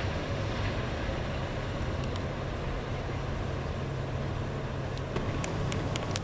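Amtrak Empire Service passenger train, led by a GE P32AC-DM diesel locomotive, moving away down the track: a steady low rumble. A few sharp clicks come about five to six seconds in.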